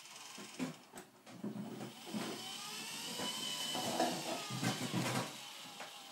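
Radio-controlled model tracked loader driving and turning on its tracks: small electric drive motors and gearboxes whining, the pitch rising and falling around the middle, with clicks and knocks throughout.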